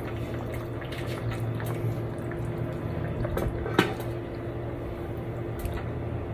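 Kitchen handling sounds of soup and pots: faint liquid dripping and light clinks of a utensil against dishes, with one sharper clink about four seconds in, over a steady hum.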